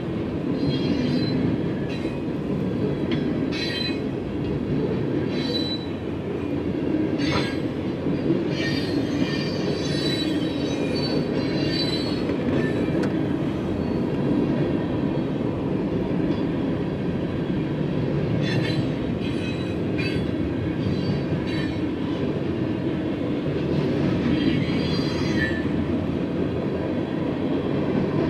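Freight train cars rolling steadily past at a grade crossing, a continuous rumble of wheels on rail. Short high-pitched wheel squeals come and go several times.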